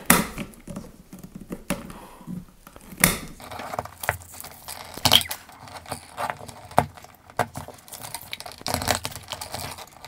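Nonmetallic sheathed electrical cable being cut and its plastic jacket worked off by hand tool: irregular sharp snips and clicks with rustling in between.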